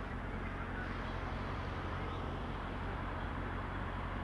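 Motorcycle engine idling steadily while stopped, with traffic moving through the junction.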